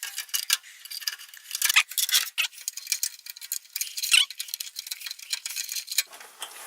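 Irregular small clicks, taps and short scrapes, thin and high-pitched, of an MSI H110M motherboard being handled and set into a PC case.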